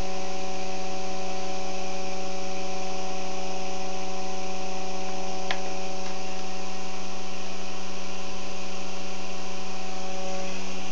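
Experimental three-phase pulse motor running steadily, its coils pulsed at about 93 to 95 hertz, giving a steady electrical hum. A single sharp click comes about halfway through, and some of the higher tones in the hum drop away shortly before the end.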